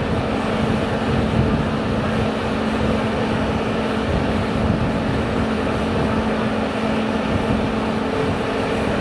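Steady drone of an engine or machine running, with a constant low hum under a rushing noise that does not change in pitch or level.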